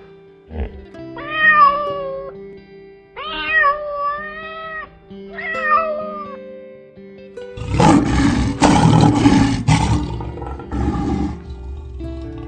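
A cat meows three times, each a drawn-out call. Then comes a loud, rough roar in the manner of a tiger, over a light musical backing.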